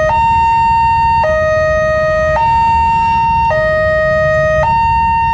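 Electronic two-tone alarm of a new Wantech railway level-crossing gate sounding, alternating a higher and a lower note, each held just over a second. It is the crossing's warning to road traffic, given while the barrier is down.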